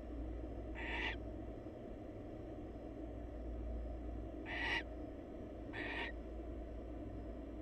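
Barn owl giving three short harsh calls, about a second in and then twice close together near the middle, over a steady low hum from the nest-box camera.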